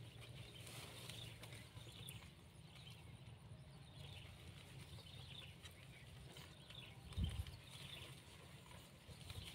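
Faint rustling and small clicks of hands working at a wire-mesh cage snake trap among long grass, with one dull low thump about seven seconds in.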